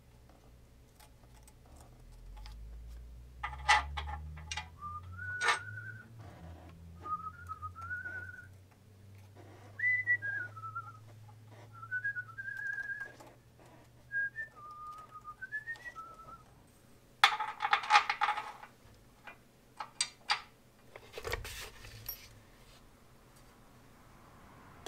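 A man whistling a tune to himself in short, wandering phrases, with scattered clicks and a brief clatter of hand tools on metal.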